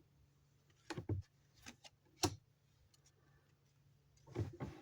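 Light clicks and taps of Yu-Gi-Oh trading cards being handled and set down: a couple about a second in, single taps a little later, and a short cluster near the end.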